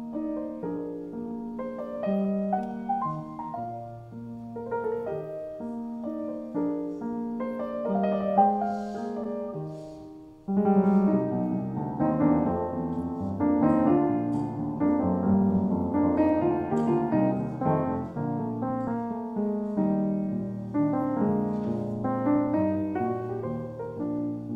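Solo grand piano playing a slow melodic piece. About ten seconds in it drops away briefly, then comes back louder and fuller, with more notes sounding at once.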